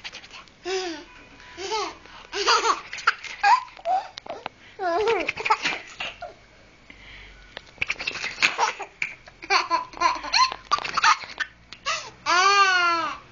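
A person laughing hard in repeated short bursts, with one long rising-then-falling laugh near the end.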